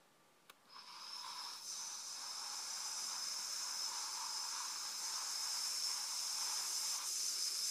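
A single click, then a steady hiss that swells over about a second and holds for roughly seven seconds before cutting off suddenly.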